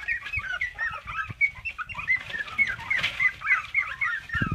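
A litter of young puppies squeaking and whimpering together, many short chirps overlapping without a break.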